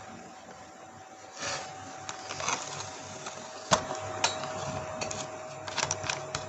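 Handling noise of a phone held close against a shirt: a brief rustle, then scattered sharp clicks, the loudest a little before and after four seconds in. Underneath is a steady hum whose pitch drops slightly at the first loud click.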